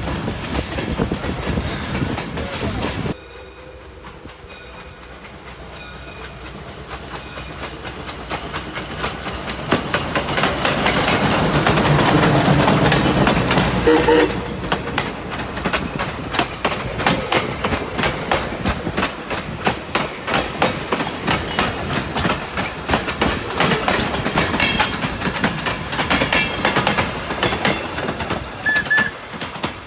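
Steam-hauled passenger train, its wheels clacking over rail joints as it rolls along. About three seconds in the sound drops off sharply, then the train builds up as it approaches from trackside, loudest around twelve to fourteen seconds in as the locomotive end passes. The coaches then roll by with a steady clickety-clack of wheels over the rail joints.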